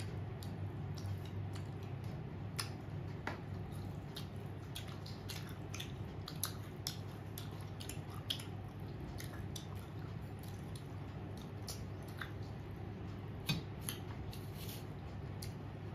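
Close-up mouth sounds of someone chewing and sucking on cooked moringa drumstick pods: scattered wet smacks and sharp clicks. A steady low hum runs underneath.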